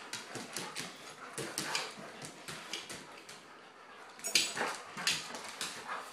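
Two Weimaraners playing tug of war: faint dog whimpers over many quick clicks and scuffs of claws on a hardwood floor, with a louder, noisier burst about four seconds in.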